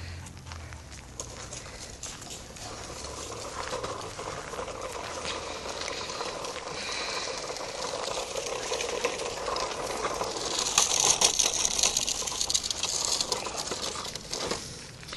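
Crackling, rustling footsteps through dry fallen leaves, building up and loudest about ten to thirteen seconds in.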